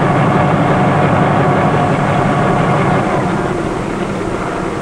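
Bell 47 helicopter's piston engine and rotor running steadily on the ground, a fast rattling beat. It fades slightly after about three seconds.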